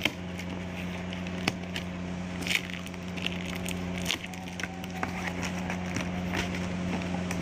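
Plastic shrink wrap and cardboard flaps of a rice cooker's box being handled and opened: short scattered crinkles, rustles and clicks over a steady low background hum.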